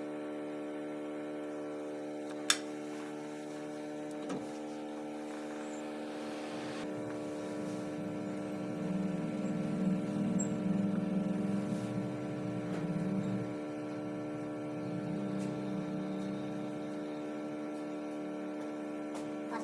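Steady electrical hum made of a stack of even tones, with a sharp click about two and a half seconds in and a louder low buzz rising through the middle.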